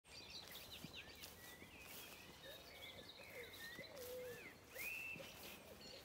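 Faint mixed birdsong: several birds singing at once, with many overlapping high chirps and lower whistled phrases.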